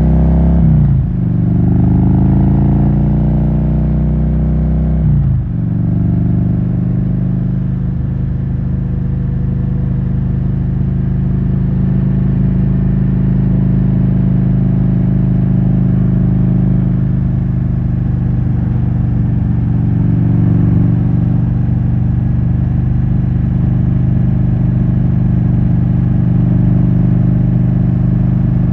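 A 2007 Harley-Davidson Road King's 96-cubic-inch V-twin, breathing through Rush Big Louie mufflers, pulls away. It revs up and drops as it shifts up twice in the first few seconds, then settles into a steady cruise.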